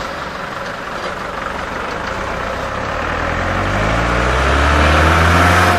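Steady road and tyre noise of highway traffic, with an engine hum swelling from about halfway through as a minivan draws close alongside, loudest near the end and then falling away.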